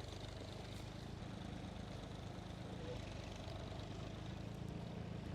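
Massey Ferguson 135 tractor engine running steadily.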